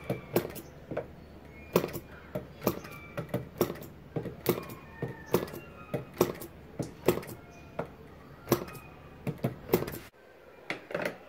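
Fleetwind-60 spark-ignition model aircraft engine being flipped over by hand with a chicken stick: a string of sharp clacks, two or three a second at an uneven pace, as the propeller is struck and the engine turns over without catching and running.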